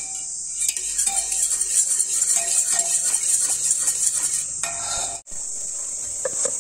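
Wire whisk clicking and scraping against a metal pot as it mashes soft cooked dal, over a steady high hiss. The whisking breaks off abruptly about five seconds in.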